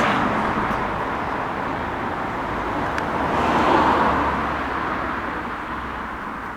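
Road traffic on a busy main road: a car passing by, its noise swelling to a peak about four seconds in and then fading away.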